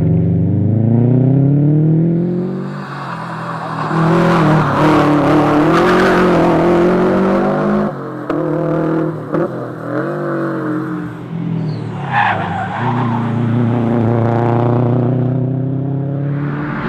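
Subaru WRX STI's turbocharged flat-four engine heard from inside the cabin, revving up through the gears and dropping back, with a break about eight seconds in. Tyre noise rises through the corners, loudest in the middle stretch.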